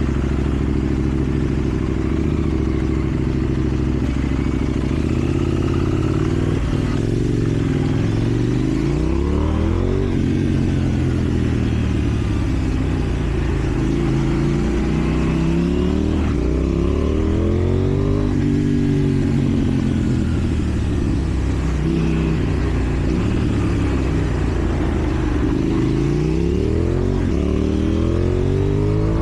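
KTM Duke 790 parallel-twin engine through a slip-on exhaust while riding, the revs climbing and dropping again and again as it accelerates through the gears and rolls off.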